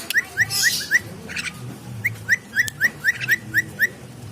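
A bird calling in two runs of short rising chirps, about four a second. A brief hissing noise comes about half a second in.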